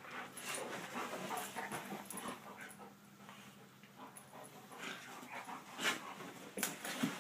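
Two dogs play-fighting on a bed: panting, snuffling and scuffling in the bedding in uneven bursts, with a few sharper, louder sounds near the end.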